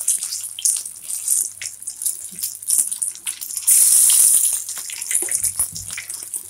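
Batter-coated apple rings sizzling and crackling in hot oil in a frying pan. A little over three and a half seconds in, another battered ring is dropped into the oil and the sizzle flares into a loud hiss for about a second.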